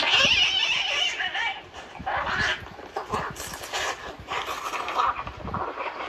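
Played-back recording of animal cries: a long raspy cry, then several shorter raspy calls.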